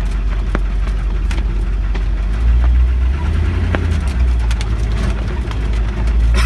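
Humvee's V8 diesel engine running, a loud low rumble heard from inside the cabin that swells about two and a half seconds in, with scattered clicks and knocks over it.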